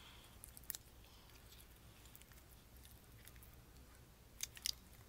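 Faint wet clicks and pops of glue-and-borax slime being squeezed and kneaded by hand, with a few small pops just under a second in and a louder cluster near the end.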